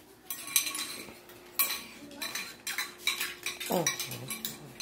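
Metal spoons clinking and scraping against bowls as hard-boiled eggs are stirred in food-coloring dye, a string of short clinks. About three and a half seconds in, a short voice sound falls in pitch.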